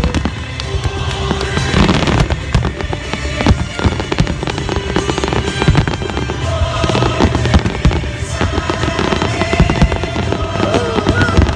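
Aerial firework shells bursting and crackling in rapid, overlapping succession, with music playing alongside.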